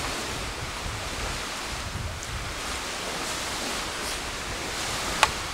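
Small wind-driven waves washing on a lakeshore, with wind rumbling on the microphone. A wood campfire crackles, giving a few faint ticks and one sharp pop near the end.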